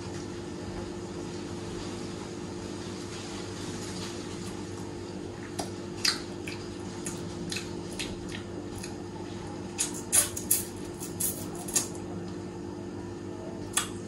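A steady low mechanical hum, like a fan or air conditioner, with a scattering of small sharp clicks and taps from about five to twelve seconds in and one more near the end.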